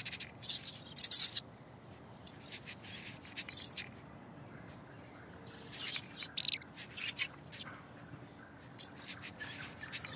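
Mouse sound effect: short, high squeaks and scratchy scurrying in about five quick clusters, with pauses of a second or two between them.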